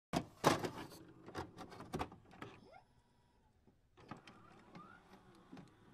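Intro sound effects: a quick run of sharp clicks and snaps in the first couple of seconds, then only faint, scattered ticks.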